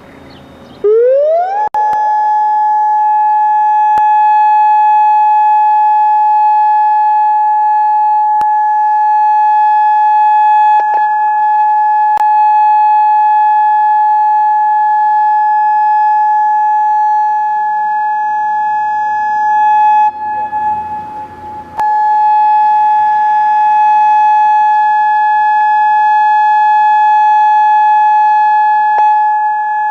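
EOWS 612 electronic outdoor warning siren sounding a steady alert. It rises quickly in pitch for about a second, then holds one loud unbroken tone. About twenty seconds in, the tone briefly weakens and wavers, then comes back at full strength.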